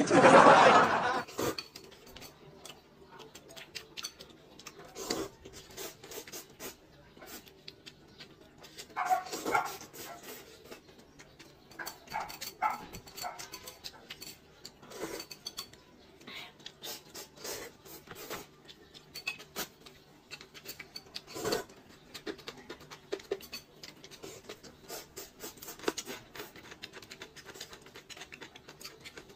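A loud slurp of instant noodles at the start, then quieter eating: chewing, a few smaller slurps and chopsticks clicking against a bowl and a paper noodle cup.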